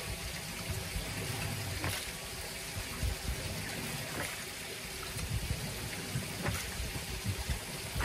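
Stiff-bristled push brush scrubbing a wet doormat, with wet swishing and scraping strokes and irregular soft knocks.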